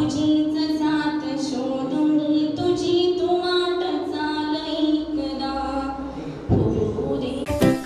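A girl singing solo into a handheld microphone with no accompaniment, holding long, slowly moving notes. In the last second or so a loud burst of music cuts in.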